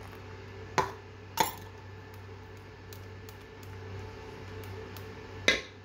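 Whisk and mixing bowl knocking three times, about a second in, at a second and a half, and near the end, as milk is worked into pancake batter. A steady low hum runs underneath.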